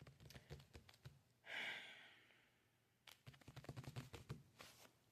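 A person's breathy sigh, a single exhale about one and a half seconds in, with faint clicks before and after it.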